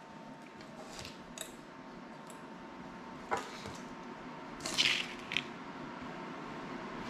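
Scattered small clicks and clatter from a small FPV quadcopter frame and parts being handled on a workbench, with a brief cluster of crackly ticks about five seconds in.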